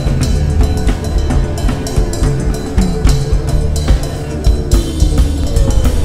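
Background music with a steady drum-kit beat over a bass line.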